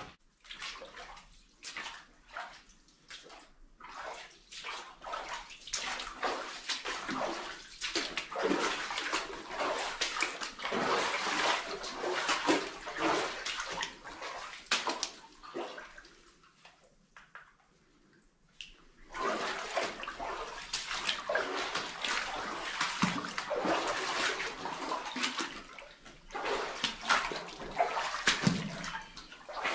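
Water sloshing and splashing in irregular stretches, with a lull of a few seconds about halfway through.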